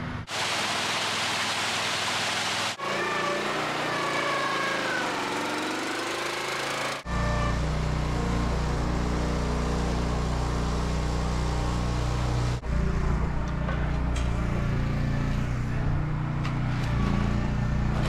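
Small engine of a concrete power buggy running steadily, coming in about seven seconds in after a loud hiss and a quieter stretch; the sound breaks off abruptly several times.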